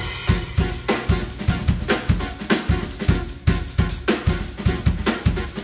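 Live jazz band playing a fast electronic-style groove: the drum kit, with busy kick and snare hits, and a deep bass come in right at the start under a repeating keyboard figure.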